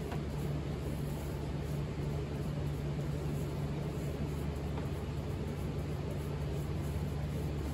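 A steady low mechanical hum with an even hiss over it, unchanging.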